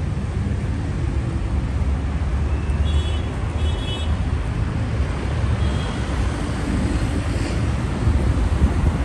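Steady rumble of road traffic on a wide city avenue, with two short high-pitched chirps about three seconds in.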